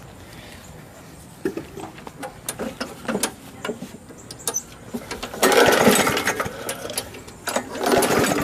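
Walk-behind lawn mower's recoil starter pulled again and again, the engine cranking over with clattering rattles but not catching, because the tank is out of gas. The rattling starts about a second and a half in and is loudest about halfway through and again near the end.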